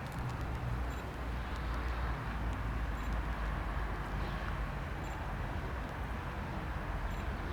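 Beechcraft Super King Air's twin turboprop engines heard at a distance during its landing: a steady low rumble with a hiss above it.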